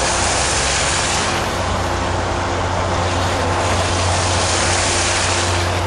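Diesel commuter train approaching slowly: a steady low engine rumble with a constant hiss over it.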